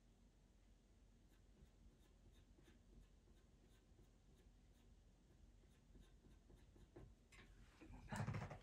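Pastel pencil drawing on PastelMat paper: faint, short scratching strokes as the colour is laid on. A brief, louder noise comes near the end.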